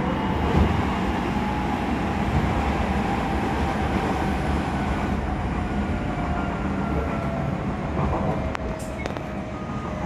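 Odakyu 3000 series (first batch) electric train heard from inside the passenger car, its wheels rumbling on the rails. Over this the Mitsubishi IGBT VVVF inverter and traction motors whine in several tones that fall slowly in pitch as the train slows. A couple of sharp clicks come near the end.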